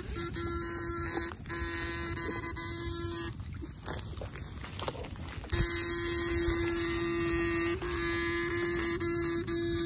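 Steady electric buzz from a backpack electrofishing rig's power unit, sending current through probe poles dipped in the water. The buzz cuts out about three seconds in, then comes back louder about two seconds later. A few sharp clicks sound through it.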